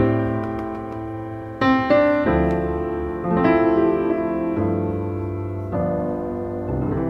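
Background piano music: slow chords struck about once a second and left to ring and fade.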